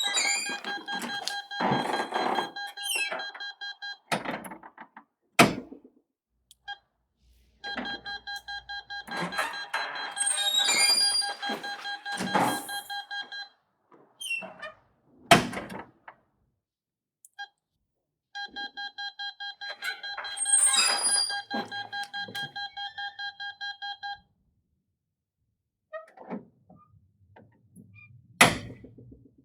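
Intercom door-alarm beeping in rapid pulses, about four or five a second, in three runs of roughly six seconds each, with other clatter under the beeps. A door thunks shut after each run.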